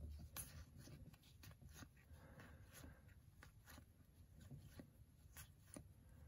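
Faint soft clicks and paper rustle of 2022 Topps Series 1 baseball cards being slid one at a time from the front to the back of a hand-held stack, about one card every half second, unevenly spaced.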